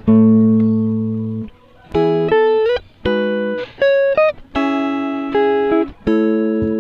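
Background music: guitar chords plucked one after another, each ringing and fading before the next, roughly one a second.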